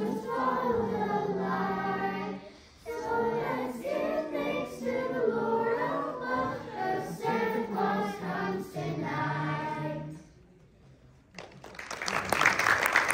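A children's choir singing a song that ends about ten seconds in. After a short pause, audience applause starts near the end.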